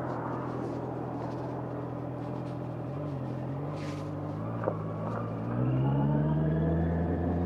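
Honda CBR650R's inline-four engine running at low revs, then pulling harder and louder about five and a half seconds in, its pitch slowly rising as the bike accelerates. There is a single sharp click a little before the five-second mark.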